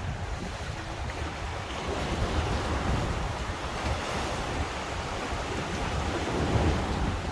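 Heavy storm surf breaking and washing in on a choppy sea, surging louder a couple of times, with wind buffeting the microphone.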